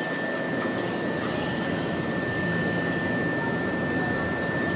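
Nankai 50000 series rapi:t electric train creeping slowly along the platform. Its steady running hum and rushing noise carry a constant high whine.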